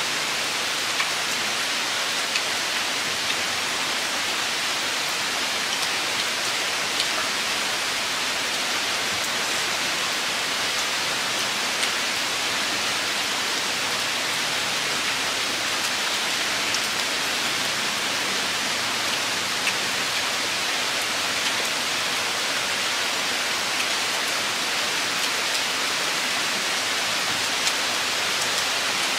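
A steady, even hiss with occasional small ticks.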